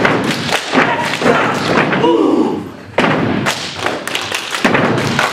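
Step team of six stomping their feet and striking their hands in unison, in rapid rhythmic strikes. The strikes thin out briefly a little after two seconds, while a voice calls out, then come back together sharply at three seconds.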